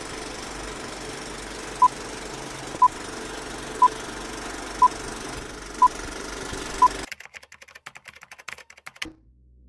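Film countdown-leader sound effect: a steady film-projector rattle with six short high beeps, one a second. About seven seconds in, the rattle stops and gives way to scattered, uneven clicks of film crackle.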